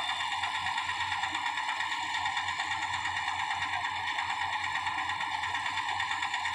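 Rice reaper machine running steadily, with a fast, even mechanical rattle.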